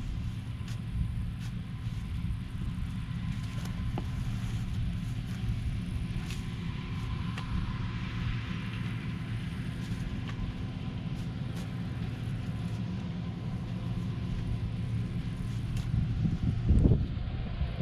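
A motor running steadily with a low rumble and hum, with scattered faint clicks; the rumble grows louder and rougher near the end.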